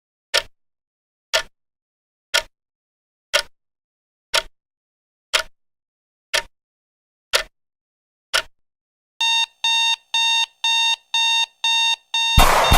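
Alarm clock ticking once a second, then going off with rapid electronic beeping, about two beeps a second. Near the end a sudden loud hit with a falling swoosh cuts the beeping off.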